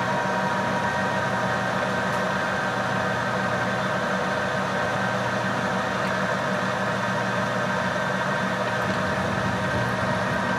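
Clausing 13-inch variable-speed lathe running under power with its lead screw engaged for threading feed: a steady hum with several held tones.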